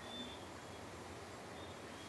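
Faint night chorus of short, high, even-pitched chirps, each about a third of a second long, repeating roughly once a second from several callers at different loudness, over a steady low hiss.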